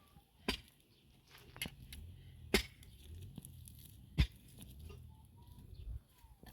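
Scattered sharp knocks and taps, the louder ones a second or so apart, over a faint low rumble.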